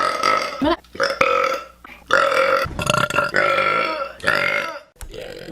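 A girl belching several times in quick succession, each burp a pitched, drawn-out sound of up to about a second, the last one weaker.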